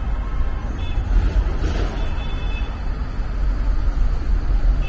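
City street traffic noise: a steady low rumble, with a louder swell of passing-vehicle noise about two seconds in and a few faint high tones.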